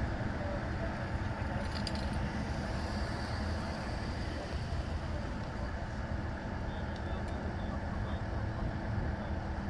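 Steady low rumble of road traffic and running vehicle engines, with a faint steady hum.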